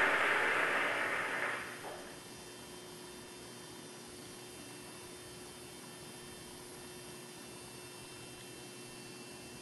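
Theatre audience applause played through a TV speaker, dying away about two seconds in. A steady low hum with a faint steady tone follows.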